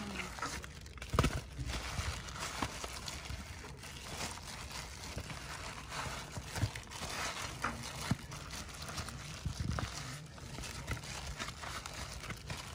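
A hand in a plastic glove rubs a lemongrass and salt marinade into whole Indian mackerel in a bowl. The glove crinkles and the fish squish wetly, with a few louder bumps against the bowl.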